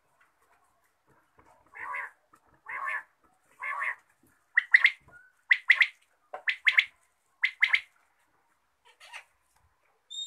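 Caged bird calling: three short harsh notes, then a run of sharp two-note calls about one a second, the last one fainter.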